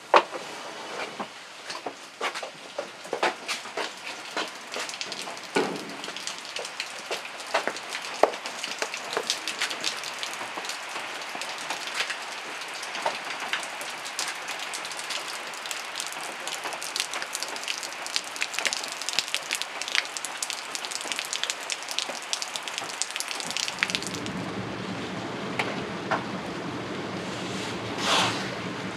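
Rain pattering on a surface, a dense run of small irregular taps over a hiss. After about 24 s the taps give way to a steadier, lower rushing noise.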